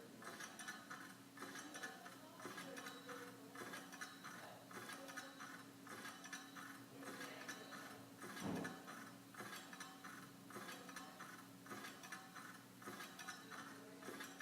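Ceiling fan running: a faint, steady motor hum with a rhythmic ticking that repeats with each turn. A brief thump about eight seconds in.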